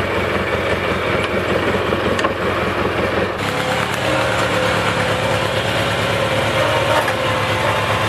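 Kohler Magnum 18 hp opposed-twin engine of a Snapper Z1802K zero-turn mower running steadily, with a steady whine joining about four seconds in.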